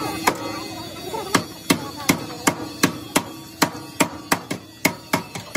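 Hand hammer striking a car's crumpled front-end sheet metal to straighten it: a steady series of sharp metal blows, about three a second.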